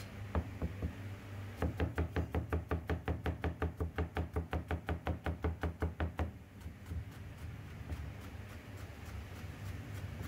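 Rapid, even knocking, about five strokes a second for some four and a half seconds, after a few scattered knocks, over a steady low hum. It fades to faint ticks near the end.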